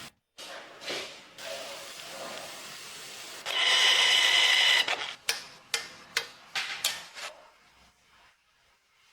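Workshop tool sounds during engine assembly: a power tool whirs loudly for about a second, then a series of about six sharp metallic clicks.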